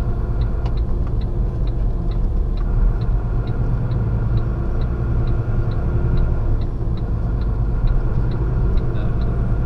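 Lorry's diesel engine running steadily as it moves slowly through the yard, heard from inside the cab, with the hazard-light flasher ticking evenly about twice a second.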